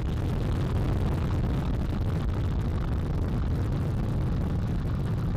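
Space Launch System rocket's four RS-25 engines and two solid rocket boosters firing just after liftoff: a loud, steady, crackling rumble, heaviest in the low end.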